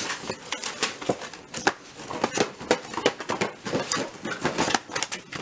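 Presents being unwrapped and handled: irregular crinkling of wrapping and packaging, with many small clicks and taps.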